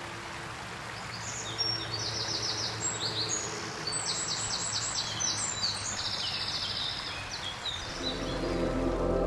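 Rushing water of a shallow rocky stream, with songbirds singing quick phrases of rapidly repeated high notes over it. Ambient music swells in near the end.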